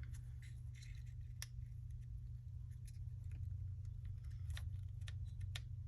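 Scattered small metallic clicks and taps of Glock pistol parts being handled and fitted, with a few sharper clicks about a second and a half in and near the end, over a steady low hum.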